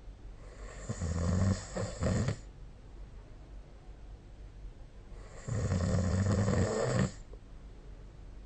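A sleeping person snoring: two snores, one about a second in and one about five seconds in, each lasting around one and a half seconds with a low pitched drone topped by breathy hiss, the first briefly breaking in the middle.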